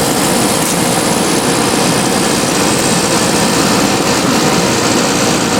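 Whirlpool 10,000 BTU window air conditioner running in cooling mode: its fan blowing air in a steady rush, with a steady hum from the Matsushita rotary compressor.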